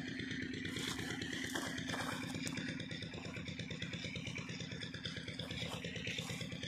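An engine running steadily at an even speed, with a rapid, regular beat.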